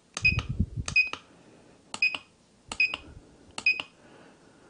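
SigmaProbe circuit tester beeping at each button press: five short high beeps about a second apart, each with a click, as the cut-off current setting is stepped down to 1 amp. A low rumble sits under the first two beeps.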